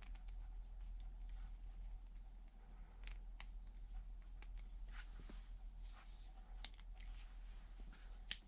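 Ganzo G302-B multitool being worked by hand, a blade opened and closed one-handed: scattered light metal clicks, with a sharp, loud snap near the end.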